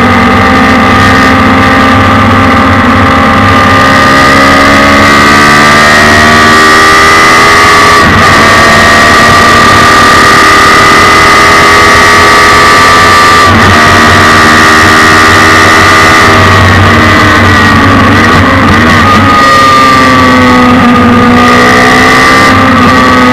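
Suzuki Hayabusa 1300 inline-four motorcycle engine in a race car, heard onboard at high revs under load. The pitch climbs steadily, drops sharply at quick upshifts about eight and thirteen seconds in, then falls unevenly as the car slows around seventeen to twenty seconds in.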